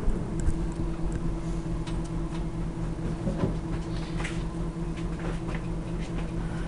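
E-flite MSR micro RC helicopter's small electric motor and rotors running with a steady buzzing hum, with a few light clicks and taps over it.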